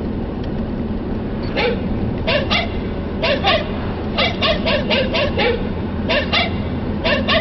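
A dog barking repeatedly in short barks, mostly in pairs with one quicker run of about six, over the steady engine and road noise of a moving car.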